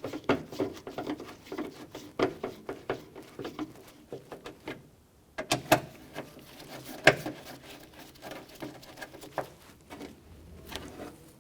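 Irregular clicking and tapping of a hand tool tightening the screws that hold the door latch and lock actuator to a car's metal door shell, with a few sharper knocks about halfway through.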